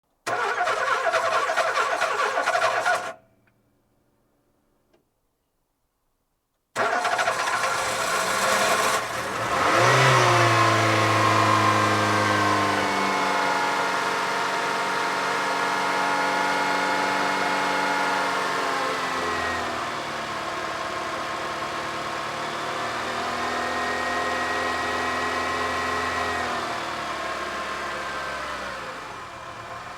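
Car engine that is hard to start: the starter cranks for about three seconds without the engine catching, then stops. A few seconds later it cranks again, the engine catches about ten seconds in and revs up, then runs at a fast idle whose pitch eases down slowly.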